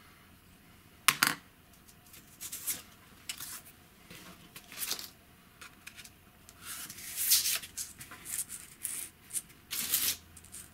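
Strips of thick paper handled, laid down and slid across a work mat: irregular rustling and light taps, with one sharp tap about a second in.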